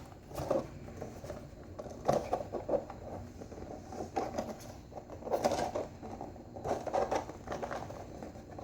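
Soft handling noises of cardboard and trading-card packs being moved and set down on a table: scattered light taps and rustles, with a few slightly louder knocks about two, five and a half and seven seconds in.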